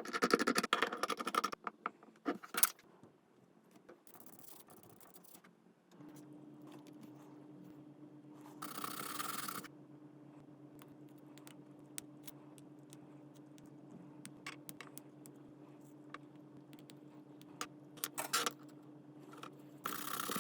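Small clicks, taps and scrapes of hand work on a phone's parts, with a steady low hum starting about six seconds in and a brief hiss a few seconds later.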